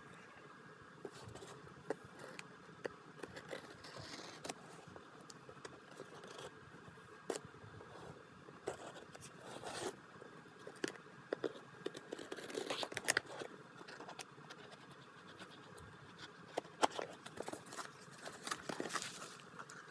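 Paper and plastic packaging being handled and opened by hand: irregular rustling and scraping with many small sharp clicks. The loudest handling comes about two-thirds of the way through and again near the end.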